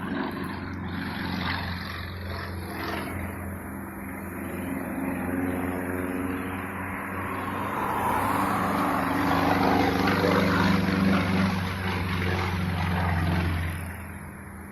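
Propeller airplane engine droning steadily, growing louder to a peak about ten seconds in and then fading away near the end.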